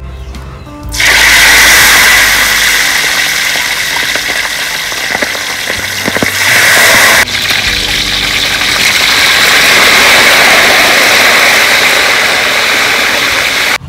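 Loud sizzling of small freshwater fish deep-frying in a wok of hot oil, starting suddenly about a second in as they hit the oil. It breaks off sharply just past halfway, then goes on steadily.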